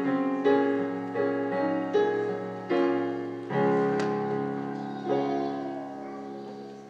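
Piano playing a slow run of chords, each note struck and decaying; the last chord, at about five seconds, rings on and fades away as the piece ends.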